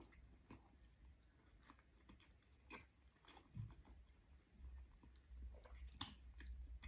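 Faint chewing of a mouthful of chicken sandwich, with scattered small wet mouth clicks and a louder click near the end.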